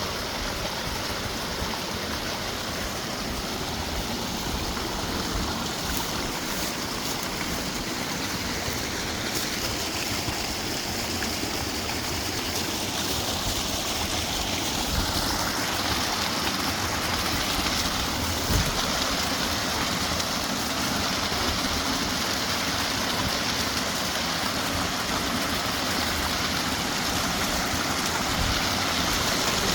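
Mountain creek water running steadily over rocks, gradually growing a little louder, with a brief knock or two.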